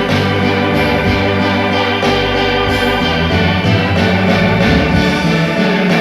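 Music led by an organ-like electronic keyboard, with sustained chords over bass notes that change every second or two.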